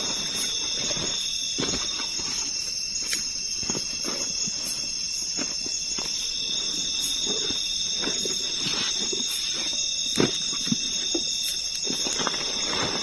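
Night insect chorus: several layers of steady, high-pitched trilling from crickets and other insects, the lower layer fading for a few seconds and returning. Scattered soft knocks and rustles close by, the sharpest about ten seconds in.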